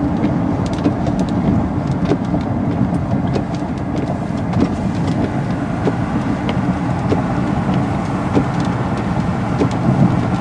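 Steady road and engine noise inside a moving car's cabin, strongest in the low range, with scattered faint ticks.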